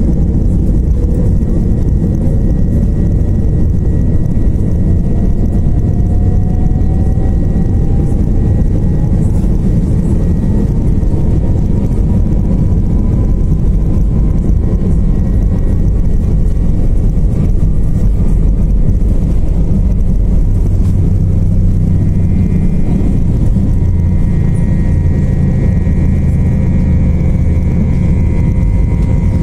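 Airbus A320 takeoff roll heard from inside the cabin: the engines at takeoff power under a loud, steady rumble, with a whine that rises steadily in pitch over the first twenty seconds as the aircraft accelerates. The rumble changes about three quarters of the way through, around lift-off.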